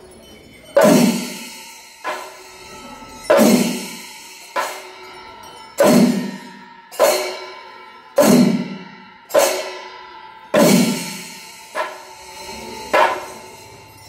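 Panchari melam ensemble of chenda drums and elathalam cymbals striking together in a slow, even beat, about one stroke every 1.2 seconds. Each stroke has a low drum thud and a metallic cymbal ring that dies away before the next, with a few strokes softer than the rest.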